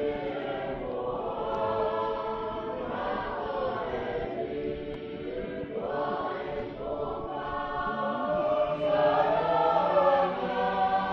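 A choir of several voices singing in harmony in long held phrases, growing louder near the end.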